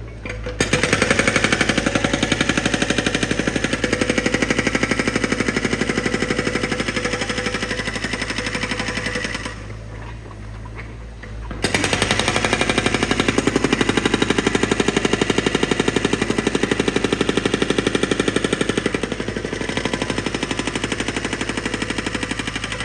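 Percussive construction drill hammering at a fast even rate, in two long runs with a pause of about two seconds in the middle.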